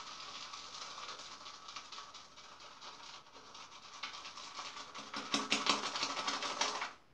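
Shaving brush whipping shaving-soap lather around the inside of a lather bowl with a raised dome at its bottom: a wet, crackling swish of many fine clicks. It grows louder about five seconds in and stops abruptly near the end, as the thick lather is worked up with a little added water.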